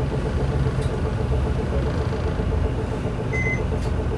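Isuzu Erga city bus's four-cylinder diesel engine idling steadily, heard from inside the cabin while the bus stands at a stop. A short high beep sounds about three seconds in.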